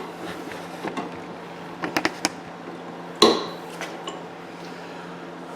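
Scattered light metallic clinks and knocks as snow blower chute-handle parts are handled and fitted by hand, the loudest knock a little past three seconds in. A faint steady hum runs underneath.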